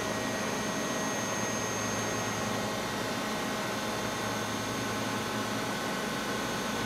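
Steady hum and hiss of running factory machinery, with several constant high-pitched tones.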